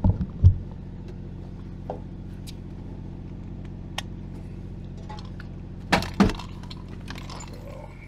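Metal clip and buckles of a dog's harness and leash jingling as the leash is clipped on, with a few loud knocks at the start and about six seconds in, over the steady low hum of the Peterbilt 379's diesel engine idling.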